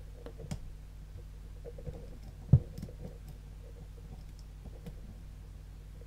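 Dimple pick probing the pins of a Mul-T-Lock Classic cylinder: scattered light metallic clicks, with one sharper click about two and a half seconds in.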